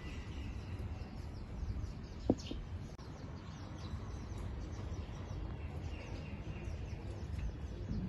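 Outdoor ambience: small birds chirping faintly over a low steady background rumble, with a single sharp tap a little over two seconds in.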